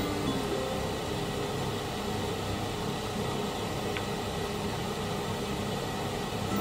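Steady, even fan-like background noise in a kitchen, with one faint tap about four seconds in.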